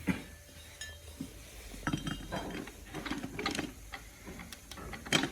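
Metal parts of a GM GF6 automatic transmission clinking and knocking against each other as it is taken apart: a run of irregular sharp taps and clicks, the loudest near the end.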